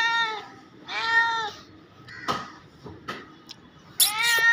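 Tabby cat meowing three times in drawn-out, rising-then-falling calls, the last about four seconds in. There are a couple of short knocks in between.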